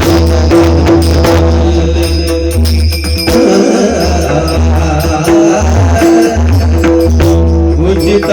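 Pakhawaj drumming with deep, booming bass strokes and sharp strikes, played over held melodic notes.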